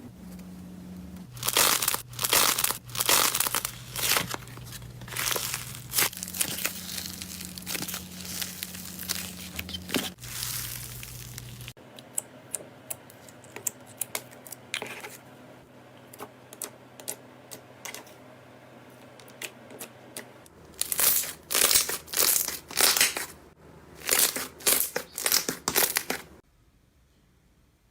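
Slime being squeezed and stretched by hand, crackling in repeated bursts, with a quieter patch in the middle; the sound cuts off suddenly near the end.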